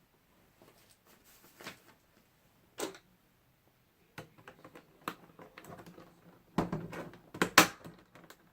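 Hard plastic Beyblade set parts being handled and fitted together: scattered clicks and knocks, one sharp click about three seconds in, and a quick cluster of louder clicks and rattles near the end.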